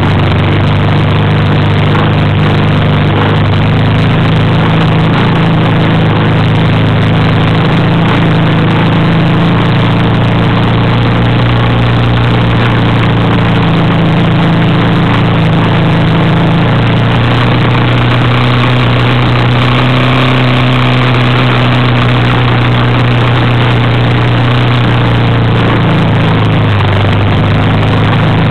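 Engine of the vehicle carrying the camera running steadily while driving over a sandy desert track, its low note under a constant rush of road and wind noise. The engine note shifts slightly about two-thirds of the way through.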